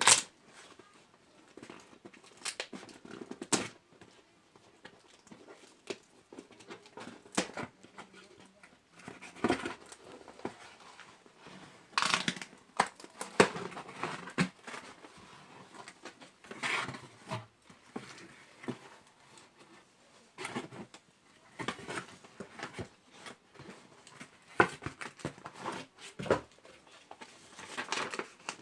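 Handling noise from unboxing a power bank: irregular rustles, clicks and taps of the packaging and device being handled, with a few louder scrapes or rustles in the middle.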